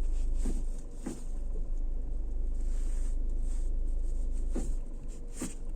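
Geely Atlas idling, heard from inside the cabin, with a few short knocks from the driveline as the gear selector is moved between Drive and Reverse. The owner puts the knocks down to play being taken up in the U-joints or splines of the all-wheel-drive transmission.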